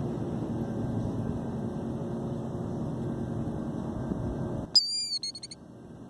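A killdeer gives a quick run of high, rapid alarm notes, under a second long, near the end: the call of a nesting bird defending its eggs. Before it, a steady low rumble runs and then cuts off abruptly.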